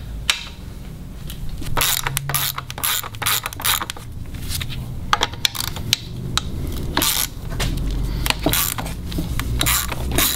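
Hand ratchet with a long socket extension clicking and clinking in an irregular series of short metallic clicks as the water pump housing bolts on an outboard gear case are worked loose.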